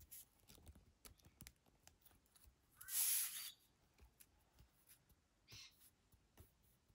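Faint handling noises: light clicks and taps of small hand tools, with a short rustle about three seconds in.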